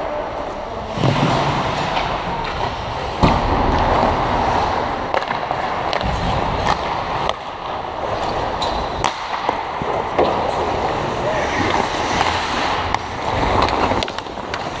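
Ice hockey play: skate blades scraping and carving the ice, with sharp knocks of sticks, puck and boards, the loudest about three seconds in, and players' voices echoing around the rink.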